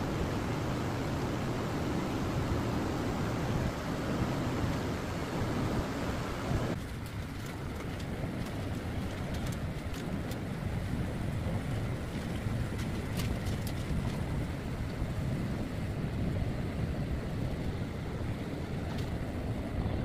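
Steady low rumbling noise with no clear pitch. About seven seconds in, the higher hiss drops away, and a few faint clicks follow.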